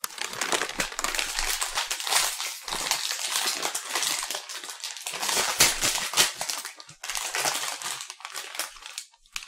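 Plastic snack bag of puffed rice crackers crinkling loudly as it is handled and opened, a steady crackle with a short break about seven seconds in.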